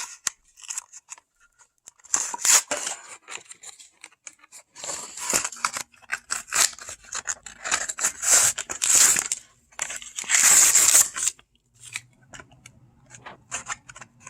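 A Hot Wheels blister pack being opened: irregular bursts of crinkling plastic and tearing cardboard, the longest and loudest lasting about a second around ten seconds in.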